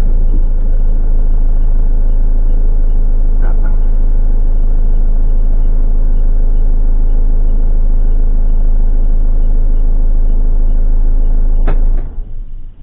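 Vehicle engine idling with a steady low rumble, with two short clicks, then cutting off near the end.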